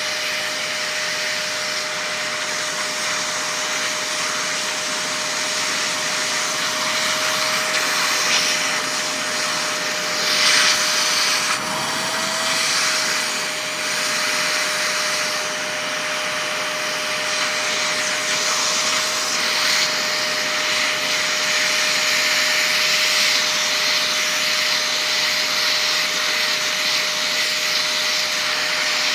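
Vacuum cleaner running steadily and loudly: a constant single-pitched motor whine over a rushing hiss of air, briefly louder about ten seconds in.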